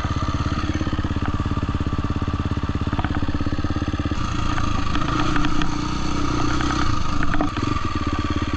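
Husqvarna FC350 single-cylinder four-stroke dirt bike engine running as it is ridden, with scattered clicks and rattles. About four seconds in it drops from a steady, even beat to a slower, uneven one as the bike eases off.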